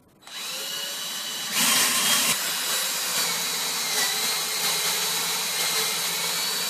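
Handheld power drill starting up and running steadily, its twist drill boring into a block of wood. The sound grows louder about a second and a half in, with a thin high whine from the motor under the cutting noise.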